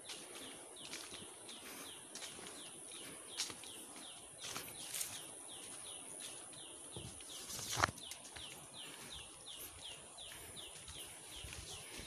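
Forest ambience: a bird repeats a short falling note about two to three times a second over a faint, steady high insect hiss. Footsteps on a dirt path and brushing through plants, with a louder thump nearly eight seconds in.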